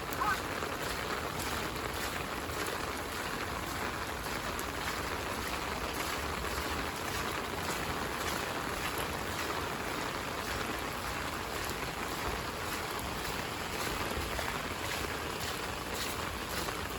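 Heavy rain falling, a steady hiss with scattered sharper taps of drops, more of them near the end.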